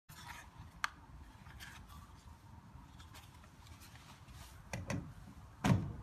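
Plastic handling clicks from a compact wall-plug electric heater being fitted and pushed into a wall socket: a sharp click about a second in, then two dull thumps near the end as the heater is pressed home.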